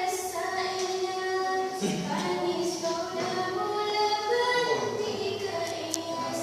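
A woman singing a dangdut melody in her bare, unamplified voice, holding long notes that step up and down in pitch.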